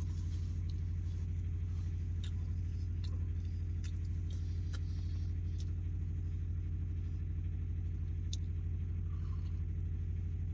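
A steady low mechanical hum, like an engine running, with a few faint clicks scattered through it.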